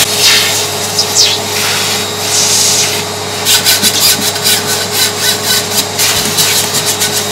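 Vacuum cleaner running, with its nozzle drawn along the frame rail of a glass terrarium: a steady suction noise and hum. From about halfway a rapid clatter of clicking and scraping comes over it.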